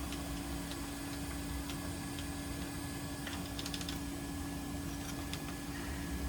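Steady electrical hum from repair-bench equipment, with a few faint, light clicks scattered through it, a small cluster of them near the middle.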